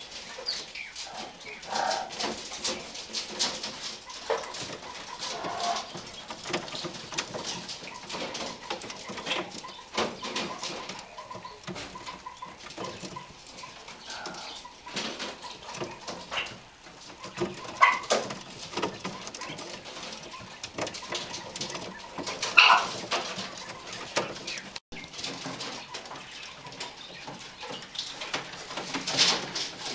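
Young quail chicks in a brooder calling with short peeps and chirps over a steady patter of small clicks and taps as they move about. Two louder calls stand out, about 18 and 23 seconds in.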